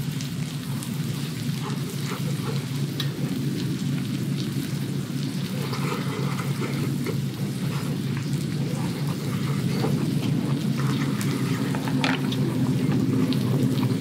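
Sliced zucchini sizzling in a skillet on a camp stove: steady crackling over a low steady hum, growing a little louder in the second half.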